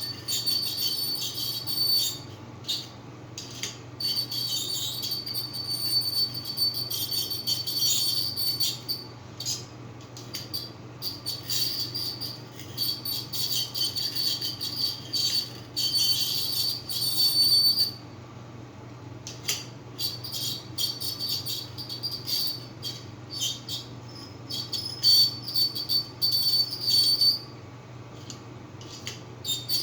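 Hair clamp giving a high, whistle-like squeal that starts and stops again and again in irregular stretches of one to a few seconds.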